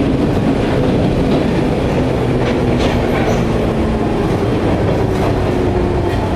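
Osaka Loop Line commuter train running into a station, heard from inside the car: a steady loud rumble of wheels and motors with a few faint held hums, broken by scattered clicks of the wheels over rail joints.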